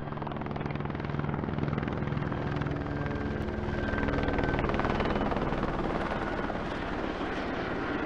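Helicopter in flight: a rapid, even rotor chop over a steady engine drone. It swells a little toward the middle and eases slightly near the end.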